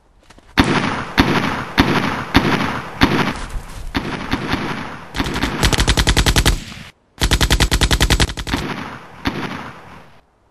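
Film gunfire: single shots about every half second, each trailing off, then two long bursts of rapid automatic fire split by a sudden cut to silence, then fading scattered shots.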